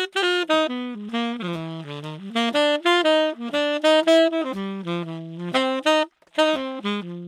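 Tenor saxophone playing a melodic line of short notes stepping up and down, with a brief pause near the end, in a small room lined with wooden acoustic diffuser panels.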